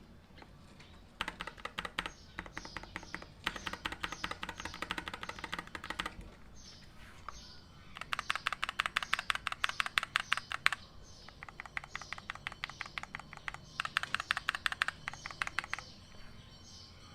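Typing on a mechanical keyboard with Akko CS Ocean Blue tactile switches: several runs of quick keystroke clicks, densest about eight seconds in, with short pauses between runs.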